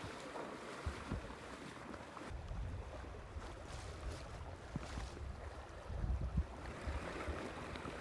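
Floodwater sloshing and splashing around people wading and towing an inflatable rescue raft, with wind buffeting the microphone as a low rumble through the middle, loudest a little after six seconds in.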